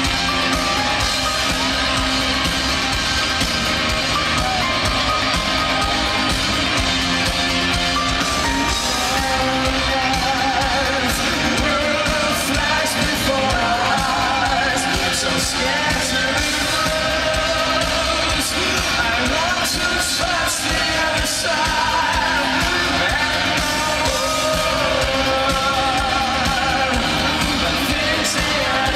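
Live arena rock band playing a full loud song, heard from within the crowd: a high, wavering lead vocal sung over guitars, bass and drums, with the hall's echo.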